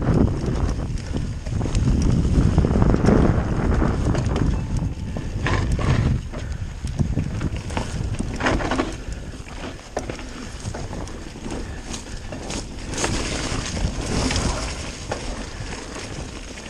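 Wind buffeting the microphone over the rumble and rattle of a mountain bike descending a rough trail at speed, with scattered clicks and knocks as it goes over bumps. It is loudest in the first six seconds, then eases off.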